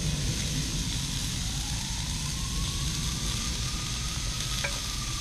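Lamb kofta skewers sizzling steadily on hot gas-grill grates, over a low engine-like rumble whose faint drone slowly rises and then falls in pitch. Two light clicks near the end.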